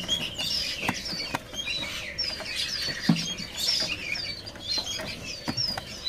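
Small caged songbirds chirping: many short, high notes that dip in pitch, overlapping all through, with a few light taps.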